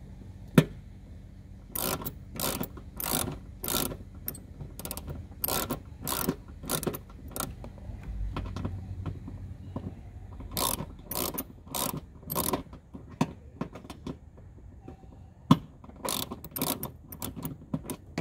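A 10 mm socket ratchet clicking in quick strokes, two or three a second, as screws are backed out. It comes in three runs with short pauses between.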